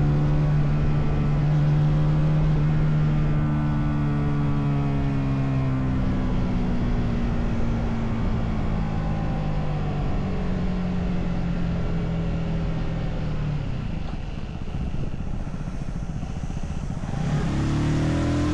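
Motorcycle engine and exhaust while riding, with wind noise throughout: the engine note falls slowly in pitch, drops back under the wind for a few seconds, then climbs sharply as the throttle is opened near the end.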